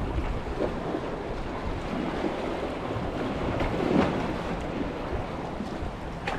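Sea waves washing against the rocks, with wind buffeting the microphone; the wash swells a little louder about midway.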